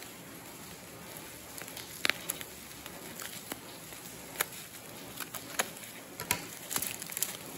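Plastic packaging wrap crinkling and crackling as it is pulled open by hand, with scattered sharp crackles, the loudest about two seconds in and a quick cluster near the end.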